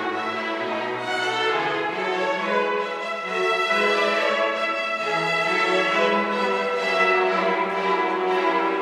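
Youth orchestra playing classical music: violins, violas and cellos in sustained, full-sounding lines, with two French horns.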